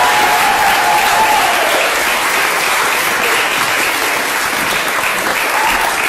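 Wedding guests applauding at the end of the bride and groom's dance, over the last held notes of the song, which fade out in the first couple of seconds.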